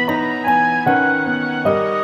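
Slow, gentle background music: sustained keyboard or piano-like notes in held chords, a new note or chord entering about every half second.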